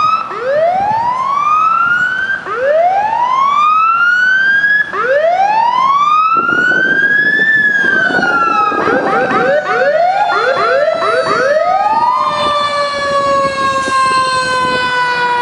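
Fire truck sirens on an emergency response. A wail rises over and over, about every two and a half seconds. About halfway through, a second siren joins with quicker sweeps, and long tones slowly fall in pitch until the end.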